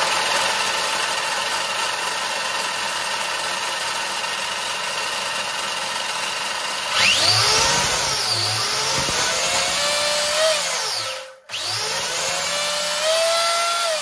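Castle 1721 brushless motor on a repaired Castle XLX2 ESC in an Arrma Infraction RC car, run up on the bench: a steady whirring hiss for about seven seconds, then the motor spins up with a steeply rising whine, dips and climbs again, winds down to a brief stop about eleven seconds in, then revs up once more and winds down near the end. It is the first power-up test after the repair, and the ESC is working.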